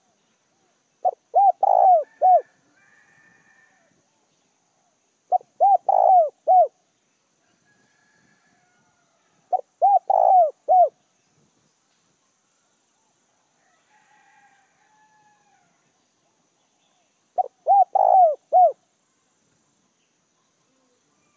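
A caged decoy spotted dove cooing: four phrases, each a quick run of four or five deep notes, about four seconds apart with a longer pause before the last. Faint, higher bird calls sound between the phrases.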